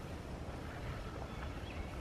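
Outdoor ambience: a steady low rumble of wind on the microphone.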